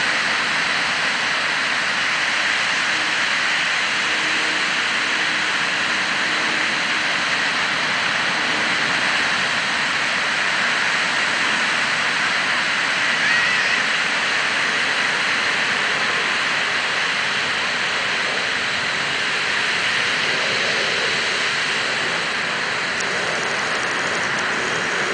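Ocean surf breaking and washing up the beach: a steady, even hiss of moving water.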